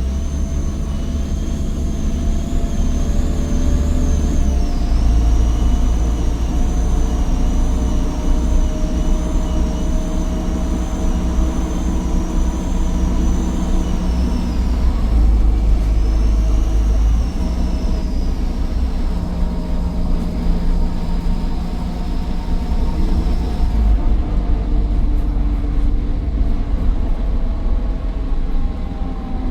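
Optare Versa bus's Daimler OM934 5.1-litre diesel running under way, with a high turbocharger whine that wavers in pitch over the engine's low rumble. The whine breaks briefly about halfway through and fades out near the end.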